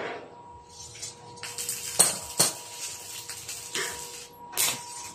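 Light metal-on-metal clinks and taps as steel square tubing of a gate frame is handled and struck, several sharp irregular strikes in the second half. A faint steady hum runs underneath.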